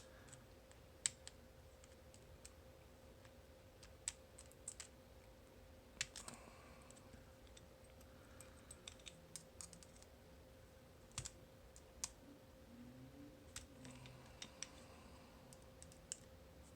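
Scattered small clicks and taps of metal tools and lock parts being handled as an Abloy Classic cam lock is taken apart, over a faint steady hum.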